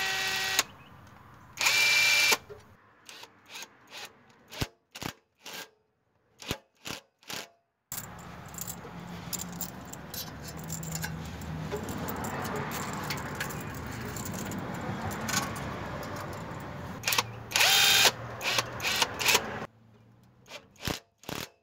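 Red cordless drill/driver running in short bursts as it drives the screws of hose clamps tightening down over JB Weld on a rusted exhaust pipe. There are three bursts: one at the start, a brief one about two seconds in, and a longer one near the end whose whine falls in pitch. Scattered clicks and a stretch of softer handling noise fill the gaps.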